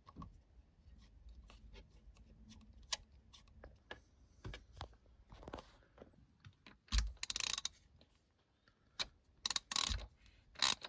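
Socket wrench being worked on a timing-belt pulley bolt: light, irregular clicks and metal ticks. There is a longer rasping ratchet burst about seven seconds in, and a run of louder ratchet strokes near the end.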